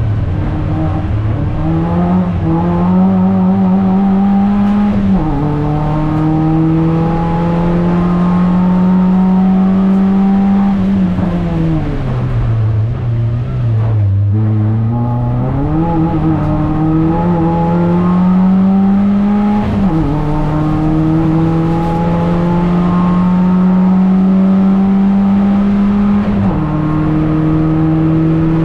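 Dacia Logan Cup race car's engine heard from inside the cabin under hard driving. The revs climb and drop at an upshift about five seconds in, fall away while slowing for a corner around the middle, then climb again with upshifts near twenty seconds and near the end.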